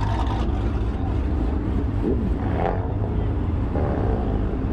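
Honda CBR600RR's inline-four engine running at low revs as the bike rolls slowly off, a steady low drone.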